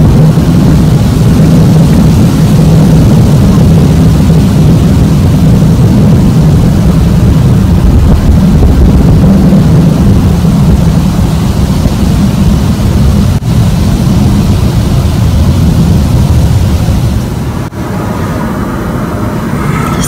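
A loud, steady low rumbling drone that the recorder takes for a strange noise coming from the sky; it eases off slightly near the end.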